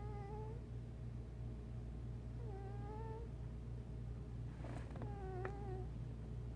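A sleeping domestic cat snoring: a short, wavering, whistling tone on each breath, heard three times about two and a half seconds apart, over a steady low hum.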